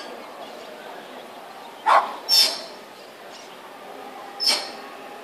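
A trained dog barking on cue: two short, sharp barks about two seconds in and a third near the end, over steady background noise.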